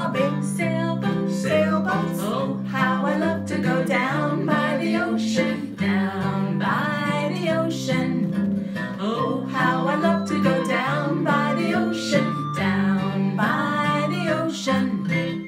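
Children's song with acoustic guitar picking and strumming under singing; the music stops abruptly at the end.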